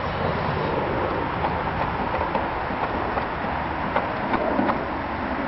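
Propeller of a worn-out Webra .20 glow engine being flicked by hand without the engine catching: several short sharp clicks and pops over a steady rushing background noise. The engine's head is worn, which makes it very hard to hand-start.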